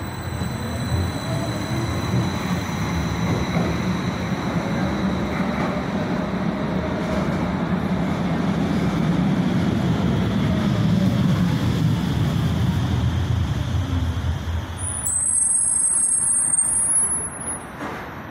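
Vienna U6 light-rail train running along the tracks: a loud, steady rail rumble with a faint motor whine that rises and falls. Near the end a high-pitched squeal sounds for a couple of seconds as the rumble drops away.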